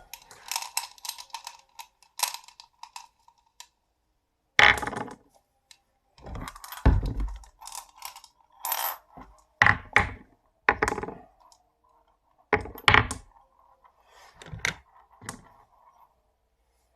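Marbles rolling down a HABA wooden marble run track, clacking and knocking at the drops and turns. They come in bursts of clicks with a faint rolling hum between, broken by short silent pauses.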